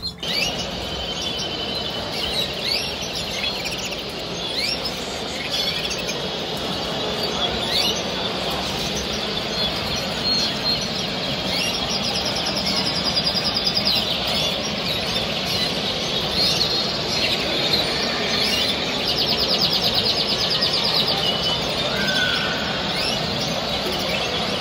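Many canaries chirping and singing, short high calls and rapid trills, over a steady background din of the show hall.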